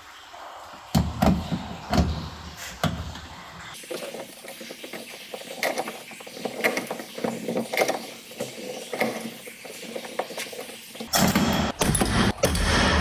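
Irregular clicks and knocks of parts being handled on a car door, with a louder, busier clatter in the last two seconds.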